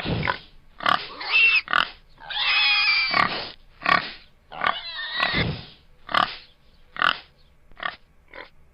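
Domestic pig grunting: a series of short grunts about one a second, with a longer squealing call about two and a half seconds in and another about five seconds in.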